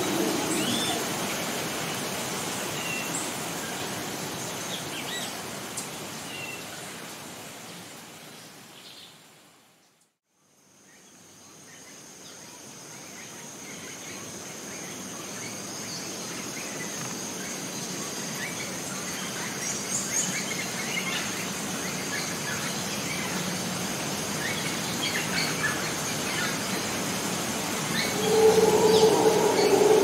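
Rainforest ambience: an even hiss with scattered bird chirps. It fades out to silence about ten seconds in and fades back up, then carries a steady high-pitched whine. A louder pitched call or squeal rises near the end.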